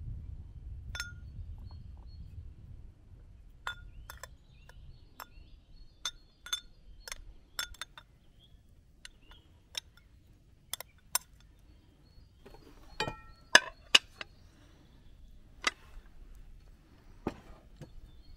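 Metal spoon clinking against a glass bowl as cooked rice is scooped and packed into it: a scattered series of sharp clinks, the two loudest a little past halfway.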